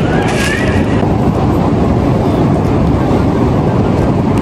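Wind buffeting the phone's microphone: a loud, steady rush of low noise.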